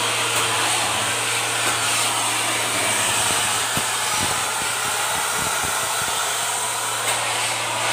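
Steady drone and hiss of heavy machinery running, with a couple of short knocks about four seconds in.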